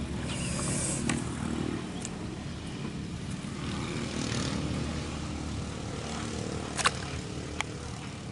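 Steady engine drone, with a sharp click about seven seconds in and a fainter one shortly after.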